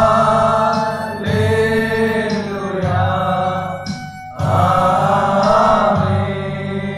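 A group of men singing a devotional song together to electronic keyboard accompaniment, in long held phrases with a brief break about four seconds in.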